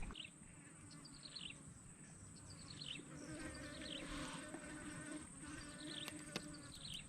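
A flying insect buzzing close by, a steady hum for about three and a half seconds in the middle, over a steady high insect drone and short falling chirps that repeat about once a second. A couple of sharp clicks come near the end.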